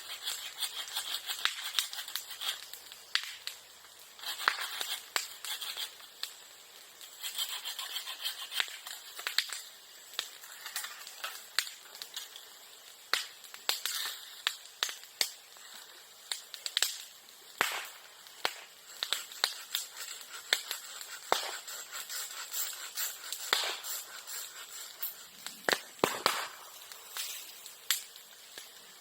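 Bonfire of bamboo and bamboo grass crackling with frequent sharp pops, like firecrackers, as the burning bamboo bursts. A hiss runs between the pops, and the loudest cracks come in a cluster near the end.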